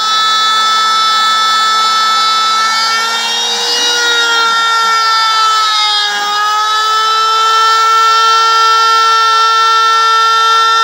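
Router spindle of a homemade CNC machine milling 18 mm plywood: a steady high whine over a light cutting hiss. Its pitch sags briefly twice, about 4 seconds in and again about 6 seconds in.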